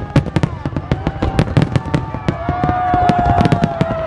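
Fireworks display: a dense, rapid run of aerial shells bursting with sharp bangs and crackles, many a second. A long steady tone joins in about halfway through.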